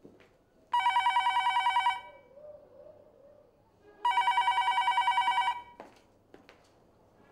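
A telephone ringing twice with a rapidly fluttering electronic ring, each ring about a second and a quarter long with about two seconds between them.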